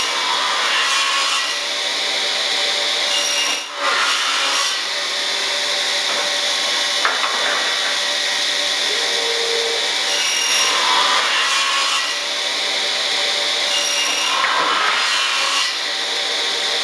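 Multi-blade pass-through cross-cut saw machine running: several circular saws spinning with a steady whine and hiss as boards are cut. The sound drops briefly near four seconds.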